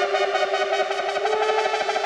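ASM Hydrasynth digital wave-morphing synthesizer playing a factory preset: a sustained, bright, harmonically rich tone that steps up to a slightly higher note a little past halfway.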